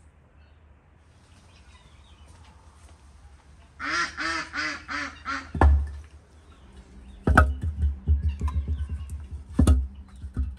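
Split firewood logs dropped into a brick tandoor oven, hitting the ash bed with three heavy thuds and clattering knocks between the last two. Just before the first thud, a bird calls in a quick run of about six notes.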